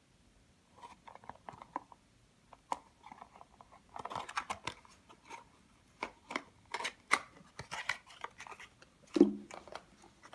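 Packaging being opened and handled by hand: irregular crinkling and crackling with scattered clicks, busiest in the second half, and one louder knock about nine seconds in.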